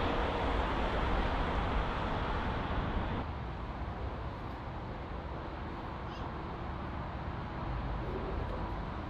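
Jet airliner's engine noise fading away as the aircraft moves off, with a sudden drop in the higher hiss about three seconds in.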